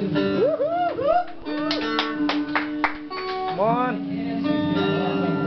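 Live band music: acoustic guitar with sustained keyboard notes. A run of sharp percussion hits comes near the middle, and voices slide up and down in pitch over it.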